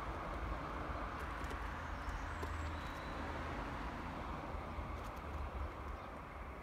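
Steady outdoor background noise with a low rumble, and a few faint crunching footsteps on gravel.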